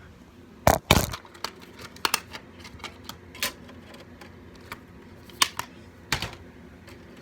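Handling noises from a home-video movie being loaded into a player: a series of sharp clicks and knocks, the two loudest close together about a second in, then scattered single knocks.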